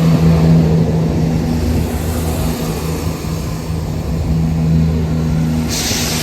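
Diesel train engine running steadily with a low, even hum, and a sudden hiss starting near the end.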